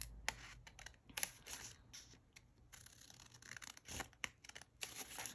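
Small scissors snipping through folded paper, a series of faint, irregular short snips as slits are cut one after another into a paper cut-out.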